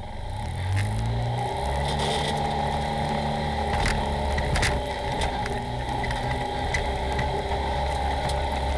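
Polaris RZR side-by-side's engine heard from inside the open cab, picking up speed about a second in and then running steadily while the machine drives a dirt trail. A couple of sharp knocks come about four seconds in.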